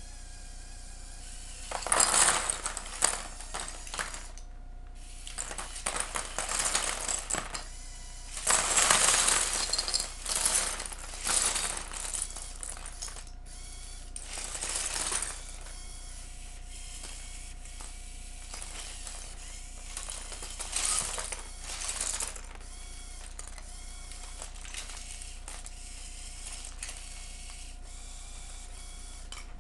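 Loose Lego bricks and Technic parts sliding off the tipped bed of a Lego tipper truck and clattering onto paper. They come off in several slides rather than all at once, loudest about two seconds in and again around nine seconds in, then thin out to occasional clicks of single pieces.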